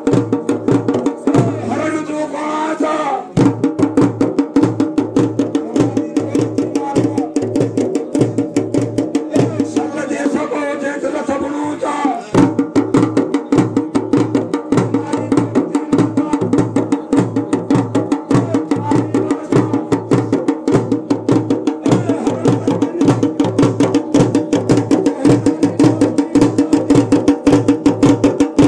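Dhol drum beaten by hand in a fast, steady rhythm, with a man's voice singing over it in places: near the start and again around ten seconds in.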